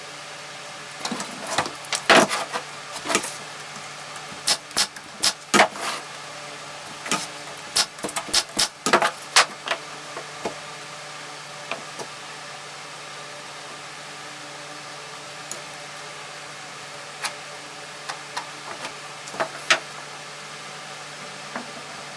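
Irregular sharp knocks and clacks of wood pieces and tools being handled at a workbench, many in the first half and only a few later, over a steady low hum.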